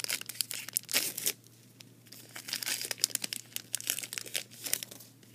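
Crinkling and crackling of a foil trading-card pack wrapper being handled and torn open, in two quick runs of sharp crackles with a quieter gap between.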